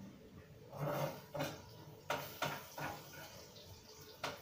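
Several light knocks and clinks of pots and a cooking utensil handled at a gas stove, irregularly spaced, with a softer scraping rustle about a second in.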